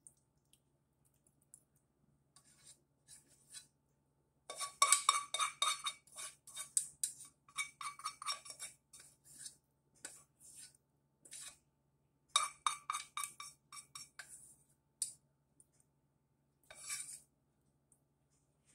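A spatula scraping and knocking against a metal saucepan as macaroni and cheese is scraped out into a bowl, with short metallic ringing. It comes in groups of quick knocks: a long run about five seconds in, another about twelve seconds in, and a brief one near the end.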